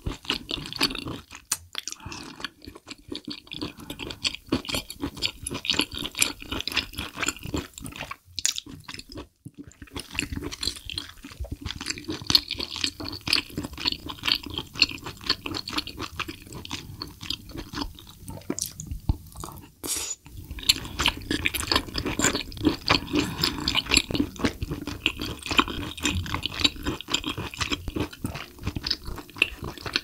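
Close-miked chewing of spicy braised abalone: wet, chewy mouth sounds with many small clicks, pausing briefly twice.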